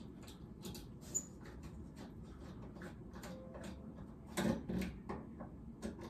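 Light ticking and scraping of a screwdriver working the screws of a wall light switch, a sharp click about a second in, and a louder clatter of knocks about four and a half seconds in.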